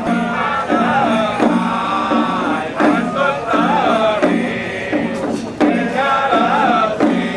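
Music with chanted singing: held, wavering melodic lines in phrases a second or so long, over a steady low note.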